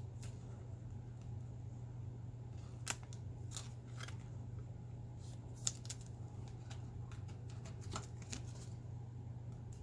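Baseball trading cards being handled and flipped through: scattered light clicks and slides of card stock. A steady low hum runs underneath.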